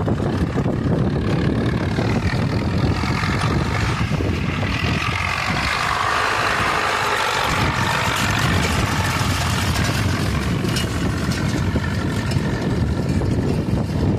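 Zetor tractor's diesel engine running steadily while towing a finger-wheel hay rake. The engine grows louder about midway, then eases off.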